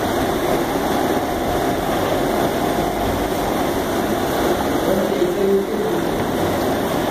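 Steady, even background noise of a room air conditioner.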